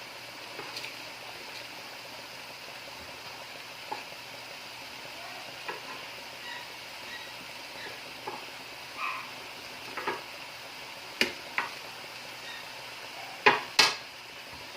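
Pan of ground meat and tomato sauce sizzling with a steady hiss, with scattered clicks and knocks of a utensil against the pan; two sharper knocks come near the end.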